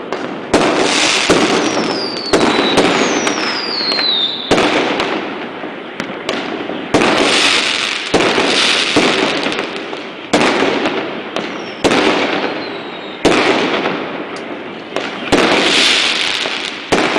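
Fireworks going off in a steady run of loud bangs, about one every one to two seconds, each trailing off over a second or so. A few whistles falling in pitch sound over the bangs.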